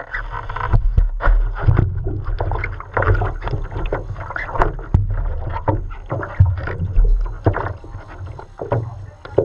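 Water splashing and lapping right at the microphone in irregular bursts, over a steady low rumble of wind on the microphone.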